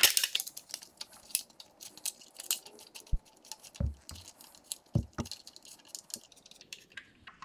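Small clicks, scrapes and rattles of a bolt and metal wire brackets being handled and threaded by hand into a motorcycle's front fender mount, with a few dull knocks about halfway through.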